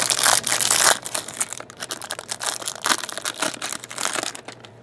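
Card-pack wrapping crinkling and tearing, densest in the first second, then scattered rustles and clicks of cards being handled.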